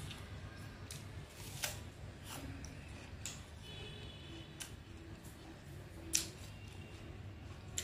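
Close-up chewing of crisp green wax apple, with a handful of sharp, crunchy clicks spread through it, the loudest about six seconds in.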